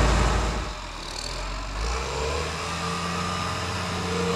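Case IH MX245 tractor's diesel engine running. A loud low rumble falls away less than a second in, leaving a steady idle hum.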